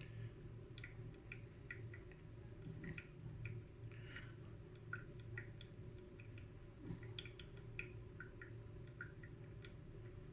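Faint, irregular small ticks and drips, two or three a second, over a low steady hum: brewed coffee draining from a V60 dripper into the server below.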